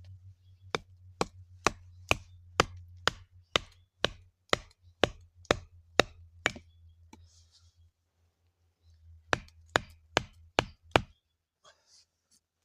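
A run of about thirteen sharp chopping strikes, roughly two a second, then a pause and five quicker strikes, over a low steady hum.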